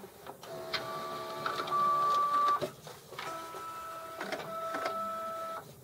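HP Officejet all-in-one running a copy job: its drive motors whine steadily in two runs with a short pause between, with a few clicks from the mechanism. The first run steps up louder about two seconds in, and the second stops near the end.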